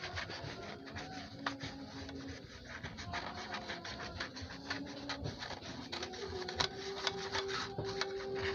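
A plastic blade scratching and rubbing across a loudspeaker's cone in quick, irregular strokes.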